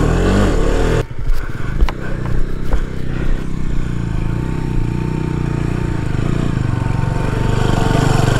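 KTM Duke 250's single-cylinder engine running under load on a rocky off-road climb, with a few sharp knocks about two and three seconds in, as the bike struggles for grip on the rocks.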